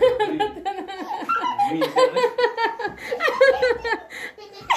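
Laughter: a run of short, rapid laughs that tails off near the end.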